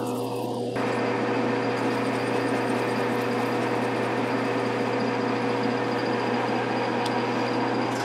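Metal lathe running with a parting tool cutting into spinning 6061 aluminium bar. A steady cutting hiss sets in about a second in over the lathe's steady hum.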